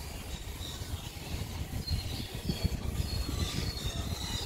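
Uneven low outdoor rumble with faint, short bird chirps scattered through it.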